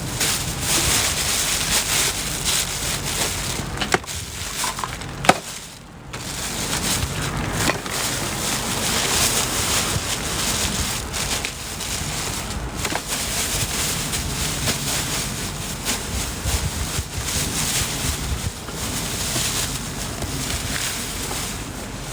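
Heavy rain with wind buffeting the microphone: a steady rushing hiss that swells and fades, with one sharp knock about five seconds in.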